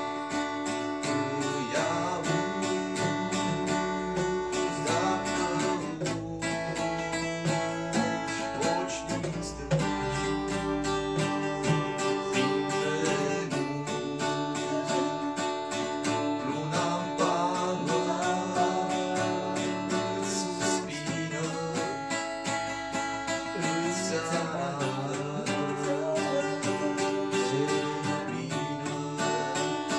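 Acoustic guitar playing a folk song with a steady rhythm of plucked chords.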